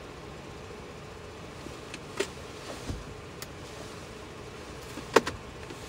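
Steady low hum of a stopped car, with two short sharp clicks, one about two seconds in and a louder one near the end.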